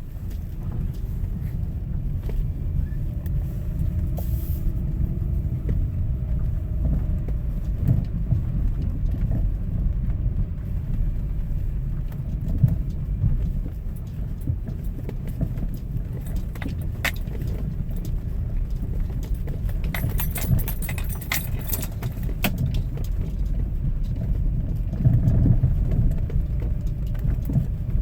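A car running with a steady low rumble and scattered sharp knocks and rattles, heaviest a little past halfway: the knock the owner is recording.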